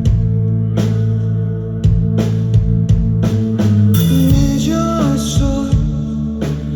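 Live rock band playing: drum hits over sustained electric guitar and bass chords, with a bending melodic line, likely a voice, coming in about four seconds in.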